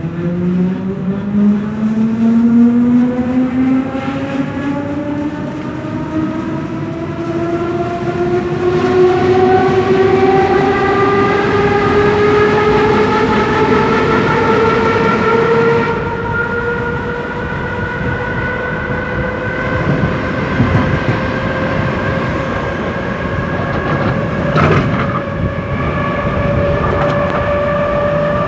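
Berlin S-Bahn class 485 electric train pulling away. The traction motors' whine climbs steadily in pitch as it accelerates, then levels off into a steady whine at speed. Wheel-on-rail rumble runs underneath, with a few knocks from the track about three-quarters of the way through.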